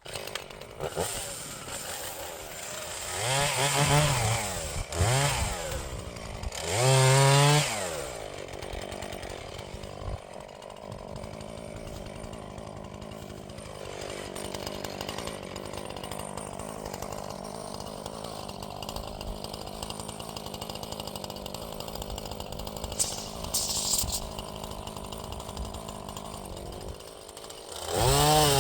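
Gas chainsaw revved up and back down twice, then running steadily at a lower level for about twenty seconds, before opening up to full throttle at the very end.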